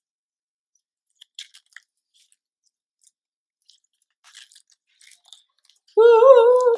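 Glittery clear-green slime being stretched and squeezed by hand, giving faint scattered sticky crackles and pops. Near the end a voice sings one loud, wavering high note, briefly.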